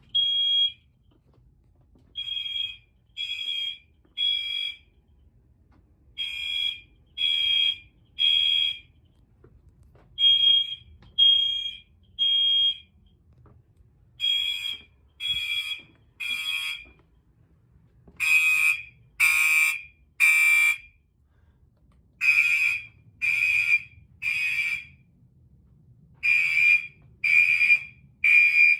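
Gentex fire alarm horns sounding together in the temporal code-3 evacuation pattern: three short beeps about a second apart, a pause, then the group repeats about every four seconds. From about two-thirds of the way through, the beeps turn louder and harsher.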